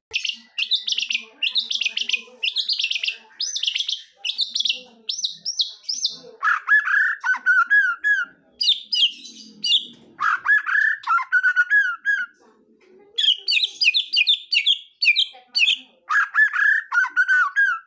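White-rumped shama (murai batu) singing continuously ('gacor'), the kind of song used to provoke rival shamas into singing. Fast runs of high twittering notes alternate with lower, looping whistled phrases, with short pauses between phrases.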